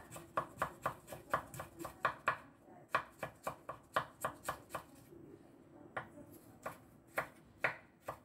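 Kitchen knife slicing fresh ginger into thin strips on a wooden cutting board: quick blade taps on the wood about four a second, a short pause about five seconds in, then a few slower single cuts.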